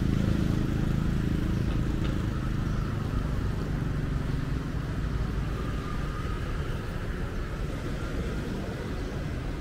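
City street traffic: engines of passing vehicles, a deep rumble that is loudest at the start and eases off over the next few seconds.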